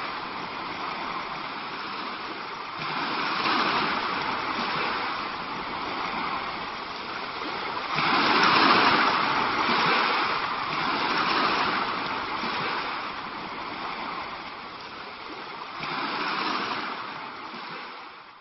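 Sea waves washing, swelling and easing every few seconds, fading out at the end.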